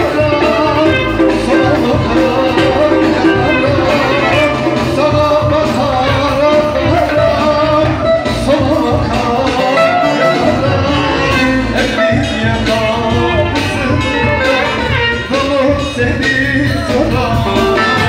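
Live amplified Turkish folk music: a male voice sings through a microphone over plucked string instruments and a steady beat.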